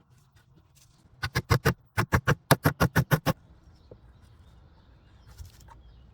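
A rapid run of sharp knocks: about four, a brief pause, then about ten more, roughly seven a second, stopping abruptly.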